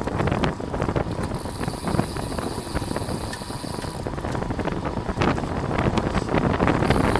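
Wind rushing over the microphone of a camera on a racing bicycle at speed, with road noise and frequent short clicks and rattles. It grows louder near the end.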